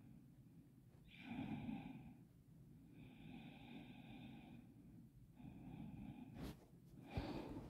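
Faint breathing close to the microphone: three slow breaths about a second long each, with pauses between, then two short sharp sounds near the end.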